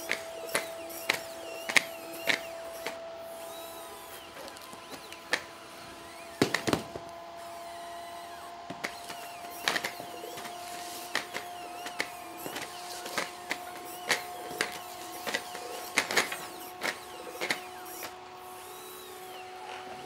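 Boston Dynamics Atlas humanoid robot's hydraulic power unit running with a steady whine that creeps slightly up in pitch. Over it come irregular sharp knocks and clatter from the robot's steps and the cardboard box being pushed and struck, the loudest knock about six seconds in.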